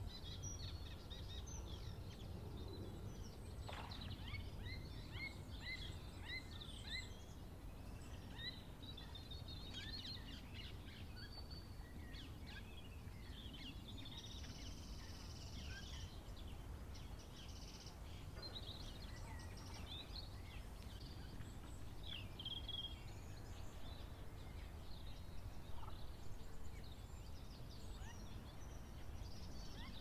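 Distant wild birds calling and singing, with many short chirps scattered throughout, over a low steady rumble of wind or outdoor background noise.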